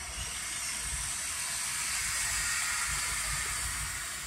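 Street traffic heard from inside a car waiting in traffic: a hiss that swells to a peak about two seconds in and then eases off, over a low rumble.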